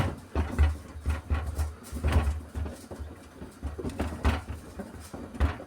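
Beko WMY81283LMB2 washing machine drum tumbling in a sudsy main wash with shoes inside, the shoes thudding and knocking irregularly against the drum, a few deep thumps a second.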